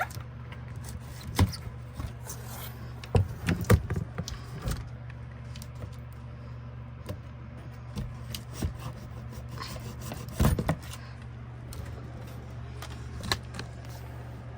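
Scattered knocks, scrapes and rubbing of a printer's box and packaging being handled during unboxing, with a cluster of knocks about three to four seconds in and another loud knock past ten seconds, over a steady low hum.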